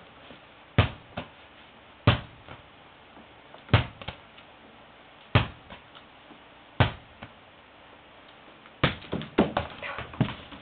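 Toy ball bouncing on a hard floor: five strong bounces about a second and a half apart, each followed by a smaller rebound, then a quick run of lighter taps near the end.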